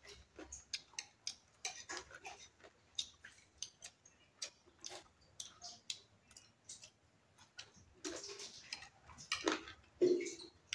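Close-up eating sounds: irregular wet clicks of chewing and lip-smacking, several a second, with now and then a light clink of a spoon on a plate.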